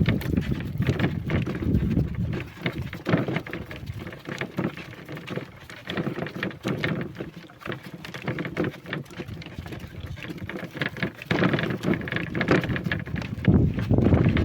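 Wooden ox cart rolling along a dirt track: irregular knocks and rattles over an uneven rumble that swells louder near the end.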